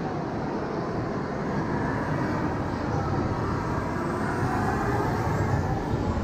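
Steady vehicle running noise, a dense rumble and hiss that grows slowly louder.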